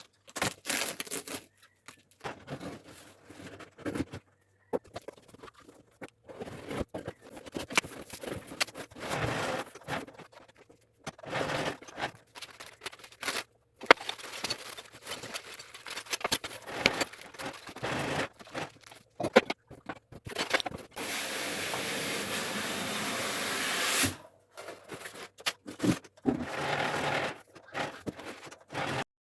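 A parcel being unboxed: packaging scraped, torn and crinkled in irregular bursts. A long steady rip runs about three seconds, grows slightly louder and stops abruptly, like tape pulled off a box.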